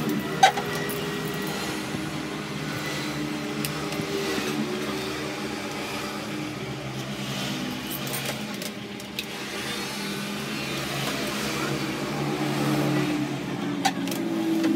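An engine running, its pitch drifting slowly up and down, with a couple of short sharp clicks.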